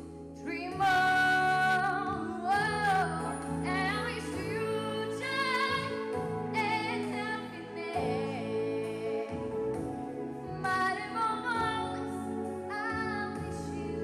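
A young girl singing a song into a handheld microphone, holding notes with vibrato, over instrumental accompaniment.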